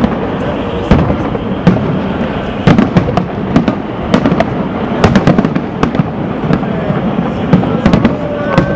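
Aerial firework shells bursting in a rapid, irregular series of sharp bangs over a continuous background din. A brief whistle-like tone sounds near the end.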